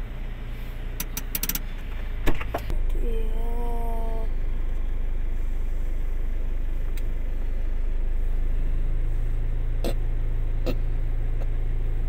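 A vehicle engine idling steadily, with a few sharp clicks and a knock in the first couple of seconds, after which the idle is louder. A short voice sound comes about three seconds in, and two more clicks come near the end.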